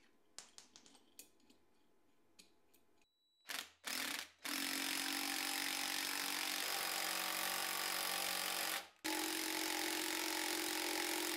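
A power tool spins the centre screw of a bolt-on hub puller, pulling the rusted brake drum and hub off the axle spindle. It gives two short blips, then runs steadily for about four seconds, stops briefly and runs again. Before that come a few light metal clicks as the puller is set.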